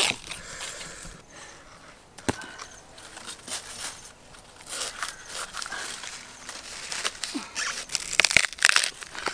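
Dry bamboo leaves and sheaths crackling and rustling while wild bamboo shoots are harvested, with sharp knocks of a machete blade cutting at the base of a shoot, one about two seconds in and one near the end.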